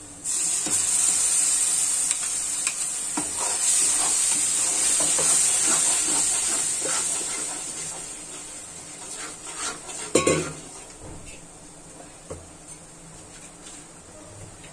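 Tomato puree hitting hot oil and frying masala in a metal kadhai, sizzling loudly the moment it goes in and dying down over the next several seconds while it is stirred with a spatula. A sharp metal clank about ten seconds in.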